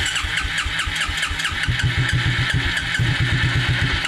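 1996 Suzuki King Quad 300's single-cylinder engine cranking on its electric starter and firing unevenly, running just barely, with a steady pulsing beat that grows quicker and stronger about halfway through. It is being cranked to test fuel flow through the disconnected inline fuel filter.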